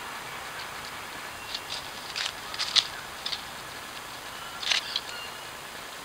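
Bowerbirds at their bower making a handful of short, harsh scratchy sounds, a cluster about two to three seconds in and another near five seconds, over the steady hiss of a trail camera's microphone.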